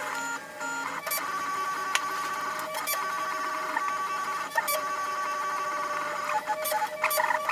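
Prusa i3 3D printer running a print: its stepper motors give off steady whining tones that shift in pitch as the print head changes direction, with a few sharp clicks.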